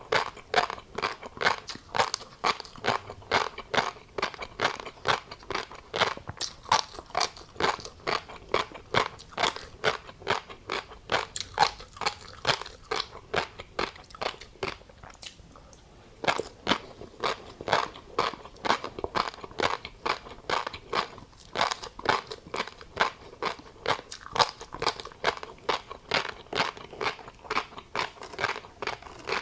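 Close-miked chewing of tobiko (flying fish roe) with a crunchy seafood topping: rapid crisp crunches and pops, about three a second, with a short break near the middle.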